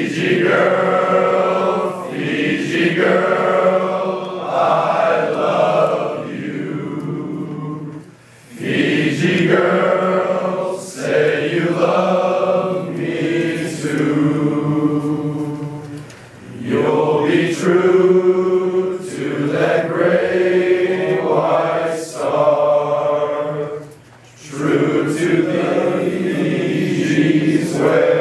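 Male choir singing in long phrases, with a short break about every eight seconds.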